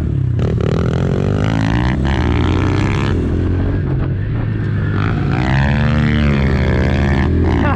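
Honda CRF110 pit bike's small four-stroke single-cylinder engine being ridden hard, revving up and down through the gears, with the pitch dipping and climbing again about five to seven seconds in.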